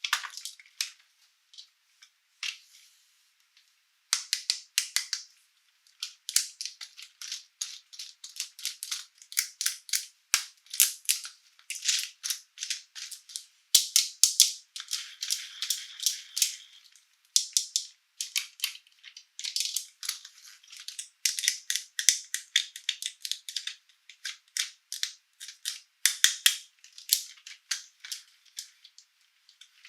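Small hard plastic toy pieces and packaging being handled: quick light clicks and rattles, sparse for the first few seconds and then an almost unbroken clatter.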